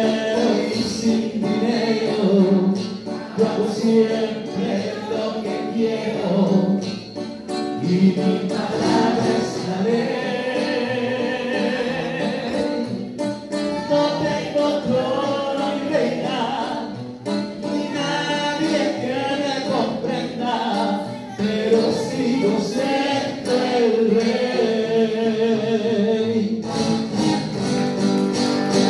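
Live Mexican song medley: a voice singing to acoustic guitar accompaniment, without a break.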